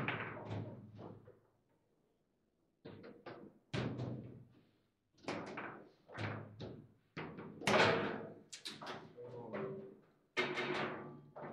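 Foosball table in play: the ball cracking off the plastic men and the table walls, and the rods knocking, in about a dozen sharp knocks that come irregularly. There is a quiet gap about two seconds in.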